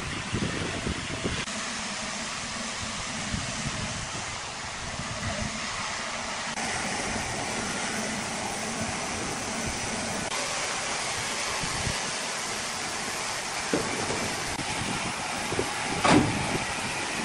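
Steady mechanical hiss and rumble of heavy yard machinery, with a few sharp metallic clanks. The loudest clank comes about sixteen seconds in.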